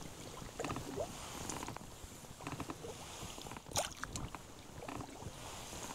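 Quiet sounds of a small fishing boat on the water: light knocks and rustling, with one sharper click about four seconds in.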